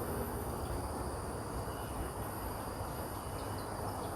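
Wind buffeting the microphone in an uneven low rush, over a steady high insect buzz, with a few faint bird chirps near the end.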